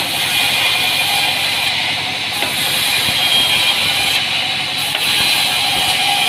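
Sawmill band saw running, a loud, steady mechanical din with an even high whine over it.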